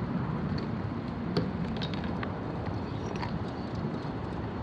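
Steady low outdoor rumble, with a few faint clicks scattered through it and one slightly louder tick about a second and a half in.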